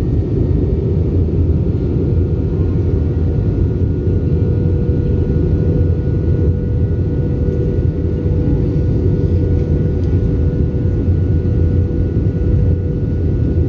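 Steady cabin drone of an airliner in flight: a loud, unchanging low rumble of engines and rushing air, with a faint steady hum above it.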